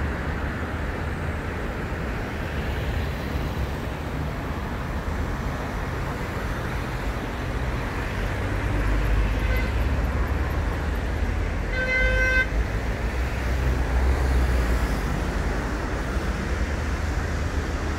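Road traffic rumbling steadily past, swelling at times as heavier vehicles go by. A vehicle horn gives one short toot about twelve seconds in.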